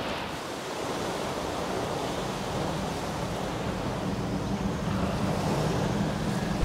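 Steady rushing noise of water and wind, as in a sound-designed sea or downpour ambience, ending in a sudden brief hit at the very end.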